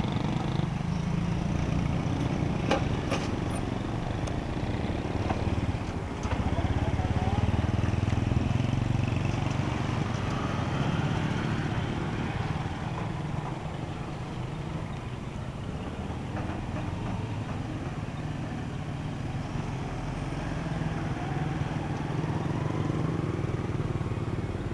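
Motorcycle and road-traffic engines running steadily, with a few light clicks about three seconds in.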